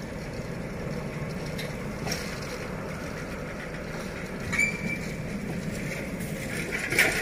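Motor scooter engine running as a loaded scooter rides over the level-crossing tracks, over a steady low hum of engines. A short high beep comes about four and a half seconds in, and a sharp, louder noise near the end.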